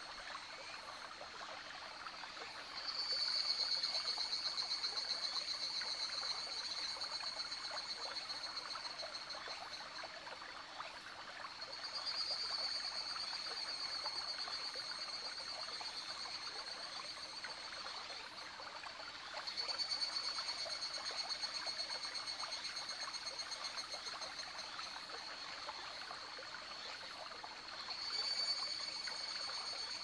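Higurashi evening cicadas (Tanna japonensis) calling over the steady babbling of a shallow forest stream. Four high, rapidly pulsing calls start roughly every eight seconds, each loudest at its onset and then trailing off.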